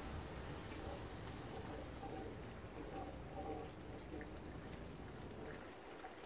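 Water poured from a kettle into a hot cast-iron Dutch oven, hissing and bubbling as it deglazes the browned onions and garlic. The hiss slowly dies down, and a wooden spoon stirring in the pot makes a few light clicks.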